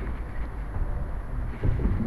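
Rumbling handling noise from a camera worn by a cat: the microphone buffets and rubs as the cat moves. It carries a low wind-like rumble, and a few dull thumps come near the end.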